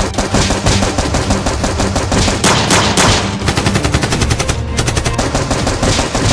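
Rapid automatic gunfire, shots following one another densely and without a break.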